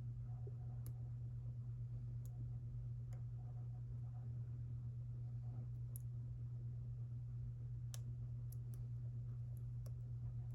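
Faint, scattered clicks of picking tools working inside an EVVA EPS dimple lock with sliders, about ten light ticks at irregular intervals, several close together near the end. A steady low hum runs underneath and is the loudest thing present.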